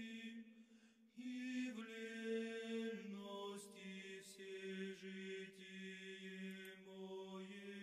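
Faint background vocal chant: a melodic voice line over a held low drone. It drops out briefly about half a second in, then resumes.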